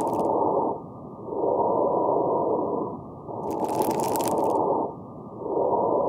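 Auscultated lung sounds with fine crackles (rales): breaths swelling and fading in repeated phases, with brief high-pitched popping near the end of inspiration. Fine crackles are the sign of collapsed small airways and alveoli snapping open as air is drawn in.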